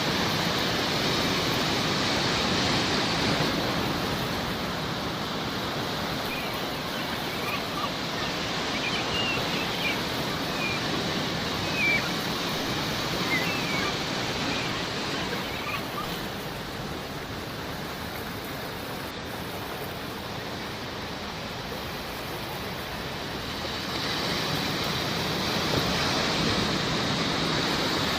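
Sea waves washing steadily, the wash swelling and ebbing, with a scatter of short seagull calls through the middle.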